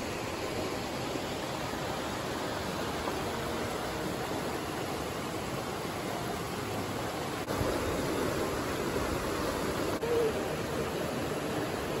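Steady rushing of water flowing over rocks in a shallow stream, a little louder from about seven and a half seconds in.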